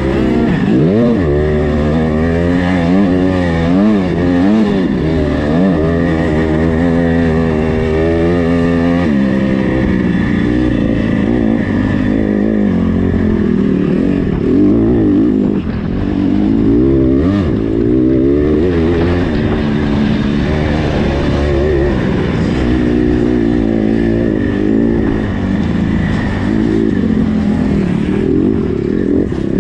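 85cc-class motocross bike engine heard close up from the bike itself, revving up and down over and over as the rider works the throttle around the track.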